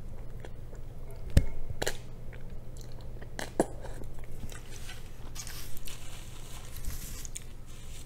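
Close-miked eating: a mouthful of jajangmyeon (black bean noodles) being chewed, with sharp wet mouth clicks, the loudest about a second and a half in, over a steady low hum.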